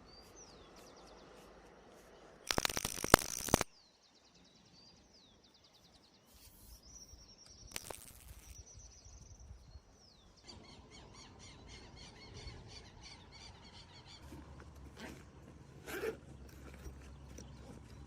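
Birds chirping: a few short calls that glide in pitch, then from about ten seconds in a fast, even run of repeated high chirps. A loud burst of noise lasting about a second comes about two and a half seconds in, and a shorter one near eight seconds.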